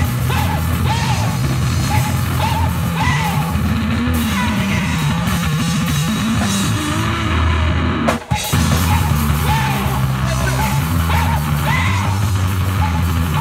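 Live heavy rock from an amplified guitar and a drum kit, loud and continuous, with a brief sudden break about eight seconds in before the band comes back in.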